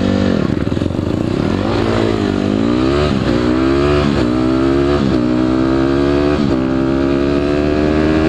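Dirt bike engine accelerating and shifting up through the gears. The engine note climbs, then drops sharply at each upshift, several shifts about a second apart, and keeps pulling slowly higher near the end.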